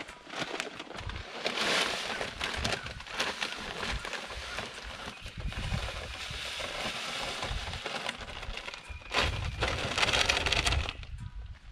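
Livestock feed poured from a paper sack into a wooden trough feeder: a steady pour lasting several seconds, then louder rustling of the sack near the end.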